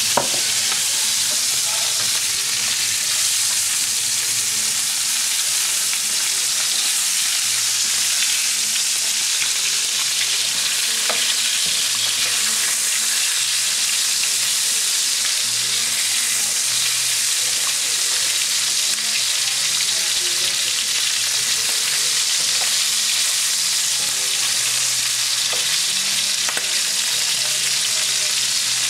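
Chicken pieces and garlic cloves frying in olive oil in a paella pan: a steady sizzle with a few faint clicks.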